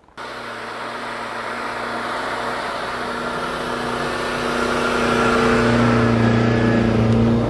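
UAZ Patriot 4x4 SUV engine running steadily under load as it ploughs through deep snow, growing louder as it comes close and passes by. The sound starts suddenly just after the beginning and cuts off abruptly near the end.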